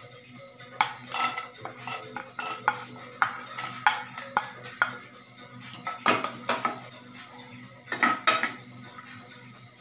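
A spoon scraping and clinking on a ceramic plate as chopped cashews, almonds and raisins are pushed off into ghee in a nonstick frying pan, then a perforated spatula scraping and stirring them around the pan. The irregular clicks and scrapes are loudest about six seconds in and again near eight seconds.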